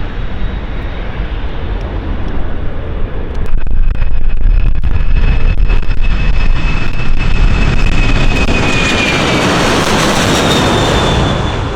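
Jet airliner engines at high power close by, as on a takeoff roll: a roaring rush that swells sharply about three and a half seconds in, with a steady high fan whine over it, easing off near the end.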